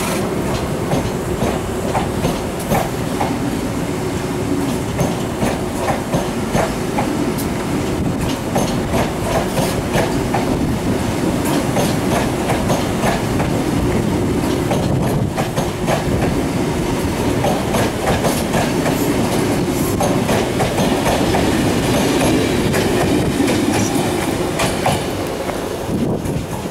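Rake of Mark 3 passenger coaches rolling past at low speed as the train departs, the wheels clicking over rail joints and pointwork in irregular knocks over a steady rumble with a faint steady whine. The rear driving van trailer draws away near the end.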